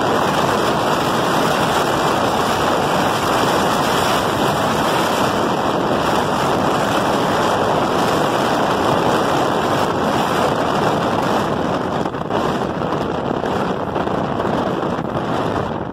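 Steady rush of air and running noise from a Walt Disney World monorail travelling along its beamway, heard from the front of the train.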